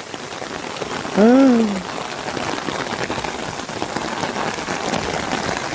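Steady rain falling. About a second in, a man gives one short voiced sound that rises and falls in pitch.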